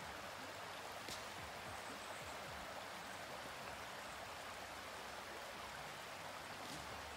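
Shallow rocky creek running over stones: a steady rushing of water, with two faint clicks, one about a second in and one near the end.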